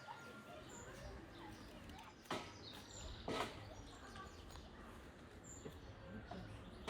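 Faint birdsong outdoors: a small bird gives short, high chirps a few times. Two brief rustling crackles come about two and three seconds in.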